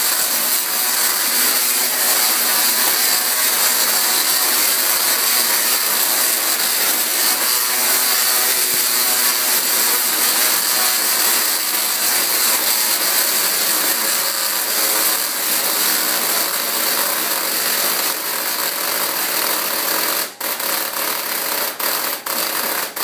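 Tesla coil discharging sparks into the air: a loud, steady buzz that cuts out briefly several times near the end.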